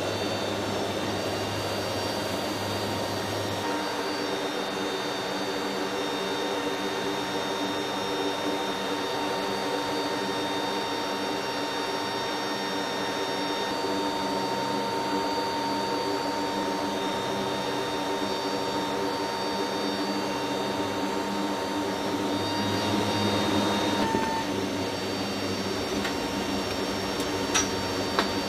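Steady turbine whine and hum of an MC-130J Commando II heard from inside its cargo hold, with several held tones over a low drone. It swells briefly a few seconds before the end, and two sharp clicks come near the end.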